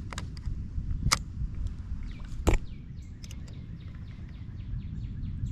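Wind rumbling on the microphone, with three sharp knocks in the first half, then a quick, even run of short falling squeaks, about four a second, near the end.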